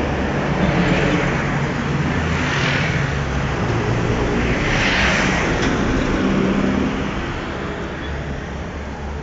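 Street traffic: motor vehicles running close by, with a low engine hum and several swelling rushes of cars going past, the loudest about five seconds in. It eases off after about seven seconds.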